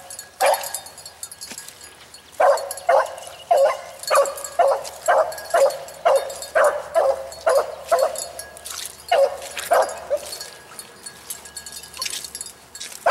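A single rabbit hound baying on a rabbit's trail, bawling out short calls about twice a second for several seconds, then slowing to a few fainter ones near the end.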